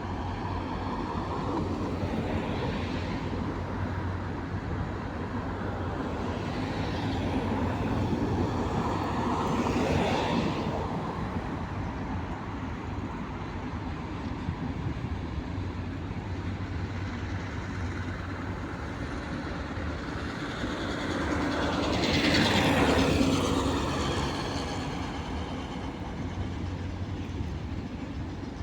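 Freight train hauled by a VL11-series electric locomotive rolling past: a steady rumble of wheels on rail that swells louder around ten seconds in and again a little past twenty seconds.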